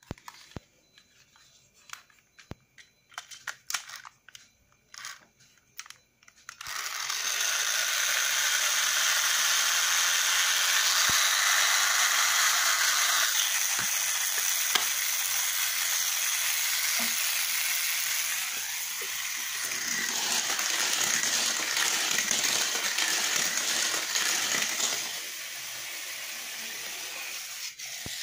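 Light clicks of a plastic toy truck being handled, then from about six seconds in a loud, steady, rasping whir of the Hot Wheels XV Racers truck's wheel-driven gear mechanism being spun up. The whir dips briefly and then drops in level a few seconds before the end.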